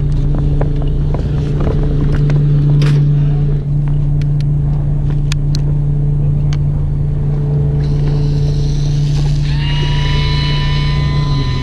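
Fishing boat's engine running with a steady low hum, with scattered clicks and knocks. About nine seconds in, a high steady whine joins it and runs to the end.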